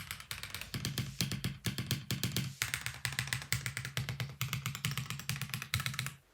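Fast typing on an Akko PC75 mechanical keyboard in its stock form: rapid runs of key clacks with brief pauses between bursts, stopping near the end.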